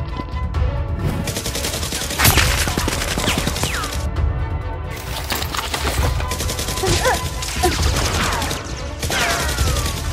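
Rapid bursts of gunfire sound effects standing in for Nerf blasters firing, over background music with a steady low beat. A couple of falling whistle sweeps cut through, about three seconds in and near the end.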